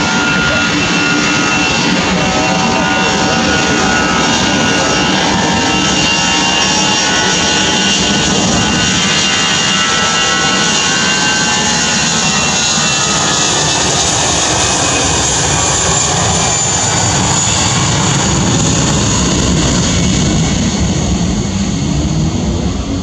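Airbus A320-214's twin CFM56 turbofan engines at takeoff power as the jet rolls down the runway and passes close by: a loud, steady roar with a high whine over it, easing a little near the end as it moves away.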